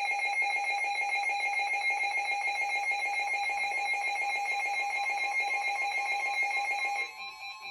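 Emergency Alert System attention signal: a loud, steady two-tone alarm that announces a severe thunderstorm warning. It cuts off about seven seconds in, leaving a quieter pulsing tone.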